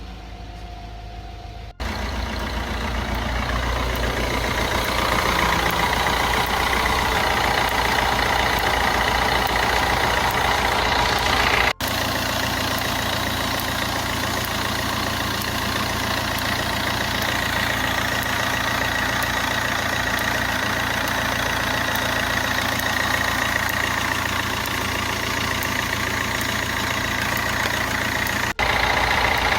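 Fiat Grande Punto 1.3 Multijet four-cylinder diesel idling steadily, starting about two seconds in, with faint light snapping over it. The snapping is static electricity built up on the worn accessory (serpentine) belt and discharging through a pulley into the engine, which the owner hears as a 'chas, chas, chas'.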